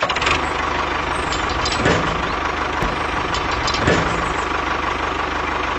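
Tractor engine running steadily with a fast, even chugging, with light knocks about two and four seconds in.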